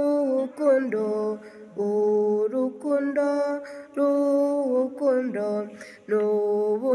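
A woman singing a slow Kinyarwanda hymn, drawing out the word "urukundo" ("love") in long held notes with short breaths between phrases.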